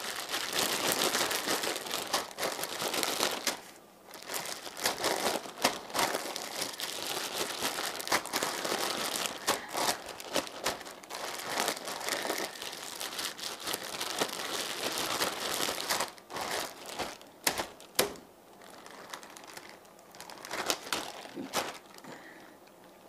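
Plastic zip-top bag crinkling as it is worked and shaken to coat strips of beef in Worcestershire sauce and dry seasoning. The crinkling is dense and continuous with a brief pause about 4 seconds in, then thins to scattered crackles over the last several seconds.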